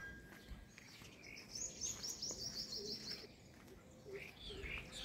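Small birds calling: a fast run of about ten high chirps over nearly two seconds, then a few shorter calls near the end.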